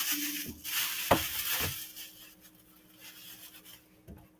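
Food containers being handled and shifted on a refrigerator shelf: rubbing and a few sharp knocks in the first two seconds, then quieter, scattered clicks.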